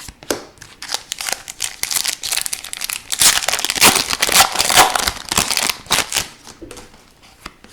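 Plastic hockey card pack wrapper crinkling and crackling as it is handled and torn. The sound is densest and loudest in the middle, then thins to a few clicks near the end.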